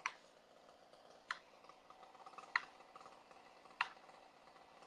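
Faint, sharp clicks at a steady pace, about one every second and a quarter, over a quiet background.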